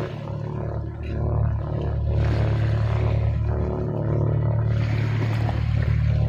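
Sea waves washing in, with surges of hiss about two seconds in and again about five seconds in, over a steady low hum.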